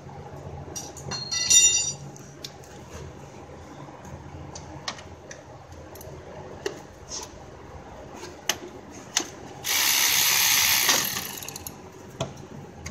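Hand tools working on engine-bay parts: scattered ratchet-wrench clicks and light metal knocks. A brief loud buzz comes about a second and a half in, and a loud hiss lasting just over a second comes near the end.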